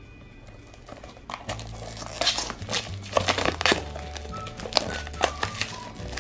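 Crinkling and scraping of a Funko Mystery Minis cardboard blind box being handled and opened by hand, a quick run of sharp crackles starting about a second and a half in. Background music with a steady bass line plays underneath.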